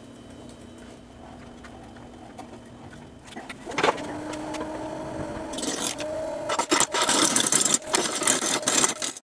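Nova wood lathe motor spinning up a rough black walnut bowl blank, with a steady hum. From about five and a half seconds a turning gouge cuts into the out-of-round blank, making a loud, rough scraping that breaks off and comes back as the uneven edge strikes the tool.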